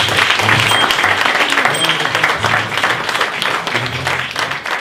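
Audience applauding, many hands clapping densely, over music with a steady, shifting bass line.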